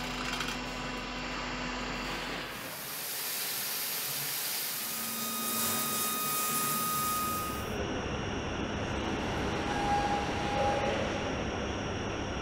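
Factory noise that changes with each cut. First a low hum with a steady tone. From about two and a half seconds in, a steady hiss of water jets spraying a truck cab with washing solution. From about eight seconds in, duller machine noise.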